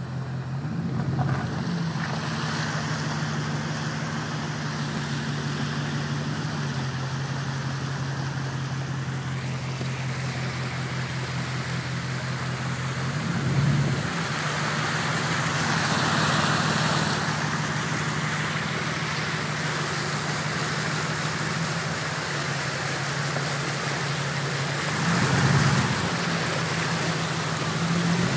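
Ford F-250's 5.4-litre V8 running steadily as the truck drives through deep floodwater and hail slush, with the rushing wash of water against the truck. The sound swells briefly twice, about halfway and near the end.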